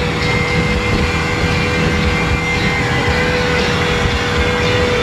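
125 hp outboard motor running steadily at speed, a held whine over the rush of water and wind as the boat plows along.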